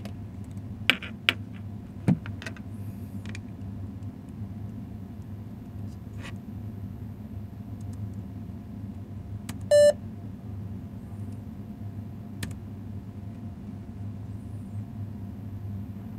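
A few sharp clicks in the first two seconds, typical of laptop key presses, over a steady low hum, then one short, loud electronic beep about ten seconds in.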